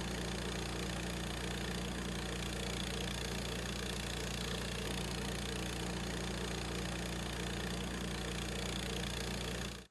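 Gas engine of a Harbor Freight bandsaw sawmill running steadily at an even speed, cutting off suddenly at the end.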